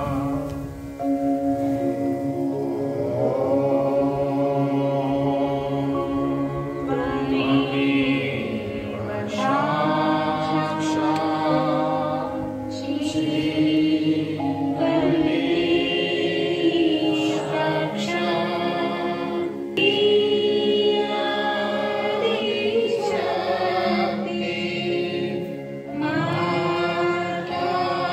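A group of voices singing a devotional chant together, in long phrases with brief pauses between them.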